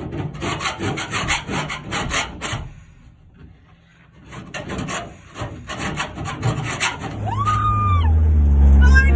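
Hand scraper rasping old glue and foam residue off a bare sheet-metal van panel in quick repeated strokes, pausing for a moment about three seconds in, then starting again. Near the end a voice lets out a whooping yell over a low steady hum.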